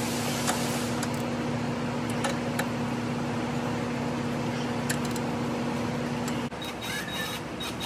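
A steady mechanical hum with an even whooshing noise under it, cutting off suddenly near the end, after which a few light clicks follow.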